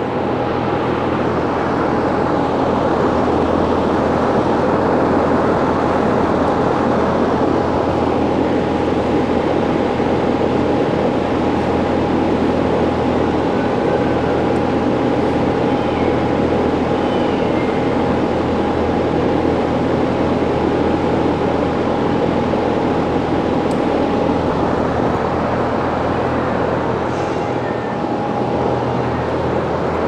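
50-inch push-pull box exhaust fan with a 1.1 kW single-phase four-pole motor running steadily: a constant rush of air with a low hum and a faint steady whine.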